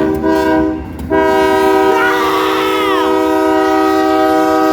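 Union Pacific diesel locomotive's multi-chime air horn sounding for a grade crossing: a short blast that breaks off about a second in, then a long steady blast held on.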